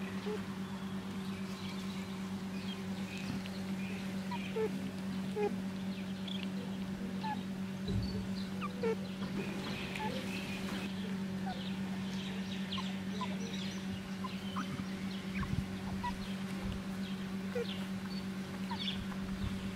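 Banded mongoose colony giving many short, high chirps and squeaks, the twittering contact calls of a foraging group, over a steady low hum. A few dull bumps are heard around the middle.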